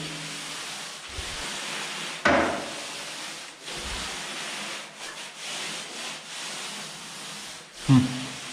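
Panda fixateur paint roller rolling primer onto a plastered wall: a steady rubbing swish of the wet roller nap on the surface, with short louder sounds about two seconds in and near the end.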